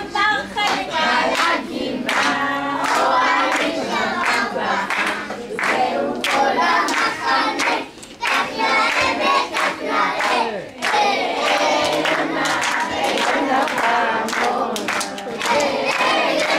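A group of children singing together, with hand-clapping throughout.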